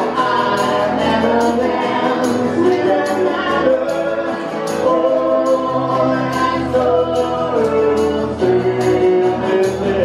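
Several voices singing a lively song together over a steady percussion beat, as music for dancing.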